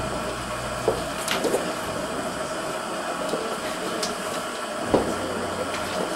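Steady hum of a hall, with scattered light knocks and handling noises as mint bunches are picked up and carried about; one sharper knock about five seconds in.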